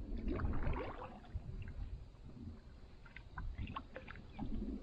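Canoe paddling: water splashing and dripping from the paddle blade with each stroke, over a steady low rumble.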